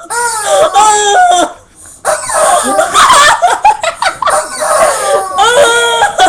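Rubber chicken toy squeezed, giving long honking wails that hold and then fall, with a jumble of shorter cries in between and another wail near the end.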